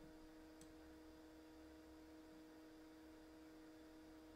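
Near silence: room tone with a steady low electrical hum and a single faint click about half a second in.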